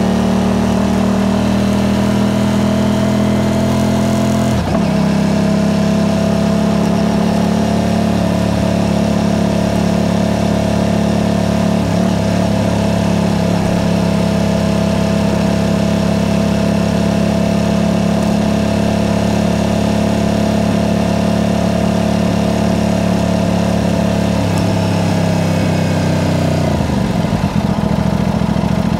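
Aprilia RS660's parallel-twin engine through a Mivv aftermarket exhaust, riding at steady city speed. A brief break in the note about four and a half seconds in, a long even cruise, then the engine note drops near the end as the bike slows.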